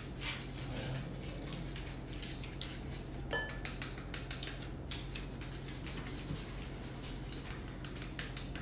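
Hand-held grater rasping a cured egg yolk over a bowl of pasta in many short, quick strokes, with a single sharp metallic clink about three seconds in.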